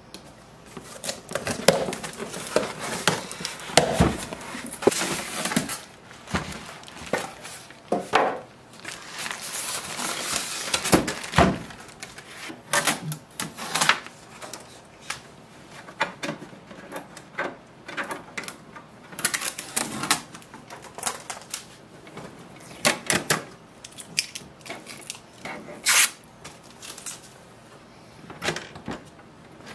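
Handling noise of unpacking a laser printer: a utility knife cutting the cardboard box open, packaging and paper rustling, and irregular knocks and clicks as the printer's plastic body and scanner lid are handled.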